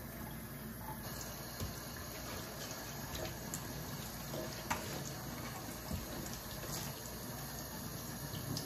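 Tap water running steadily into a stainless steel kitchen sink, with a few small splashes as a wet puppy is rinsed under it.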